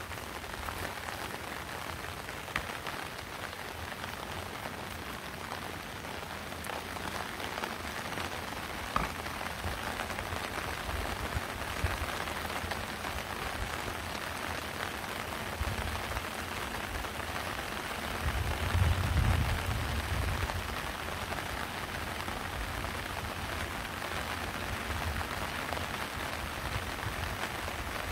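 Steady rain falling, an even patter, with a low rumble swelling briefly a little past the middle.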